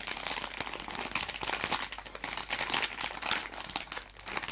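Plastic snack-bag wrapper crinkling as hands handle and turn it over, a continuous run of small crackles.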